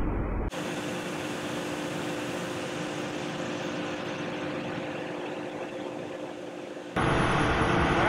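Steady machine hum with a hiss and a few held tones but little deep bass, from harvest machinery running. It begins abruptly about half a second in, replacing a deeper engine rumble, and the deeper rumble cuts back in near the end.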